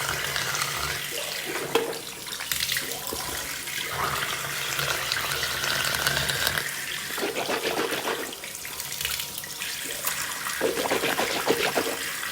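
Manual toothbrush scrubbing teeth in a series of stretches of rapid back-and-forth strokes.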